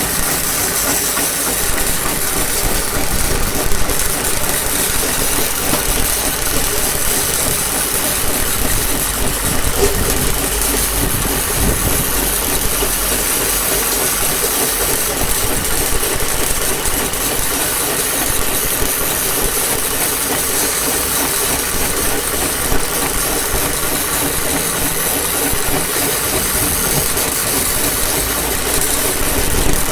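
Steady machine noise: a constant hiss over an engine-like drone that holds unchanged throughout, with a couple of faint knocks.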